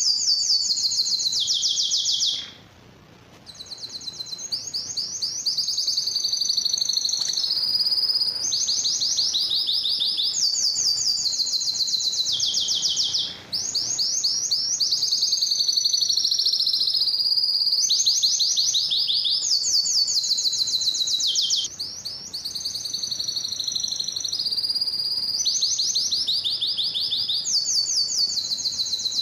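Domestic canary singing: a long, high song of rapid trills, moving from one trilled phrase to the next every second or two, with a brief pause about three seconds in.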